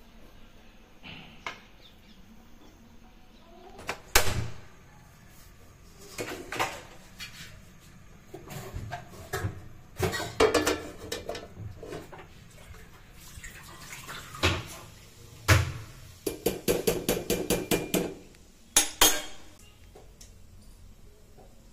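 Steel kitchenware clattering: a spoon and steel containers knock and clink against a steel kadhai in scattered single strikes, then a quick run of about ten light taps near the end.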